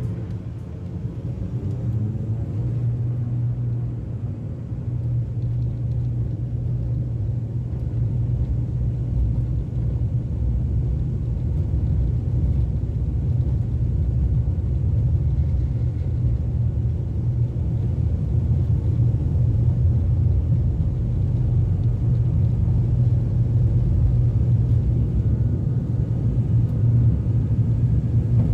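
ATR 42-500's twin Pratt & Whitney PW127 turboprops at takeoff power, heard from inside the cabin: a steady low propeller drone over runway rumble, gradually growing louder as the aircraft accelerates down the runway to lift-off.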